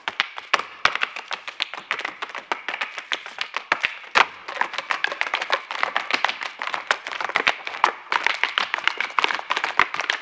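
Irish step dancers' hard shoes beating fast, dense rhythms on the stage, with no music under them.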